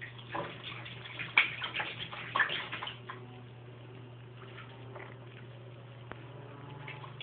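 A cat pawing at bath water and foam: a run of light splashes and pats in the first three seconds, loudest about a second and a half in and again near two and a half seconds, over a steady low hum.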